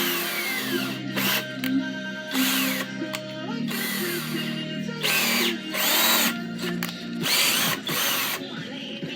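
Power drill run in about six short bursts, its motor pitch rising as the trigger is squeezed and falling as it is let off.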